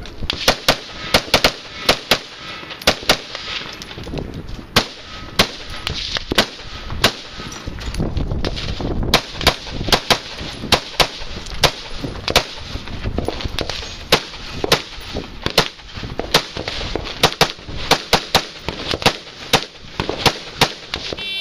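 An AR-15-style rifle fired rapidly in quick strings of shots, with a short lull about eight seconds in. Faint metallic pings of steel plate targets being hit ring after some of the shots.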